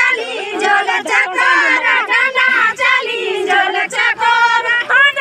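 A group of women singing a Garhwali jhumailo folk song together, several voices overlapping on drawn-out, wavering notes.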